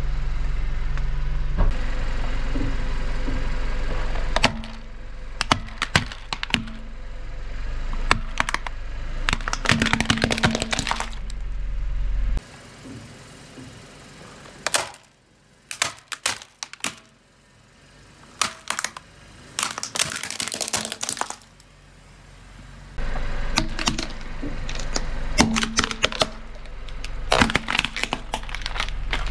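Car tyre rolling slowly over plastic toys and crushing them: clusters of sharp cracking and snapping plastic, with quieter gaps between. A steady low sound of the car moving fills the first few seconds.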